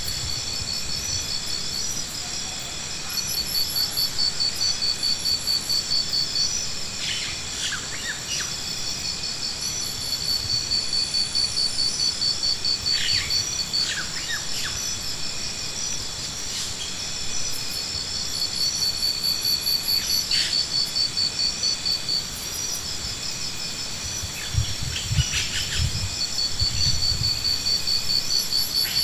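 Insects calling: a high, fast-pulsing trill that comes in bouts of a few seconds over a constant high whine, with a few short chirps in between.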